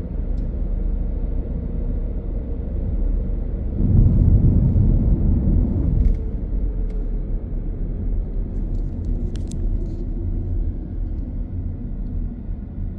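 Car driving on a city street: a steady low rumble of road and engine noise that swells for about two seconds a few seconds in. A few faint clicks come later.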